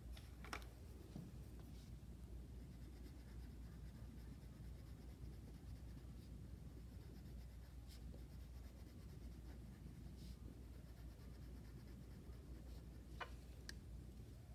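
Faint scratching of a crayon coloring on paper, with a few light clicks, over a low steady hum.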